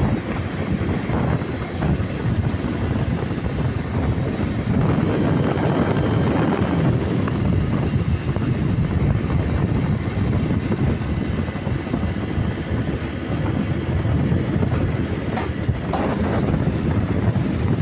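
Steady road and wind noise from a vehicle moving at highway speed, with wind rumbling on the microphone.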